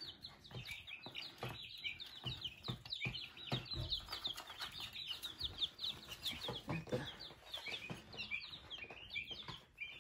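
A brooder full of five-day-old chicks peeping: many short, falling chirps overlapping one another without a break.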